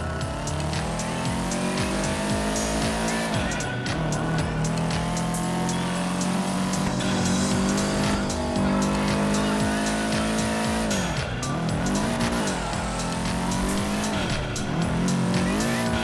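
Racing game audio: a car engine revving hard, its pitch climbing and then dropping sharply several times as it shifts gears, with music underneath.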